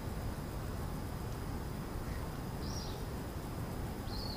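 Steady low background noise outdoors, with one short high bird call a little under three seconds in.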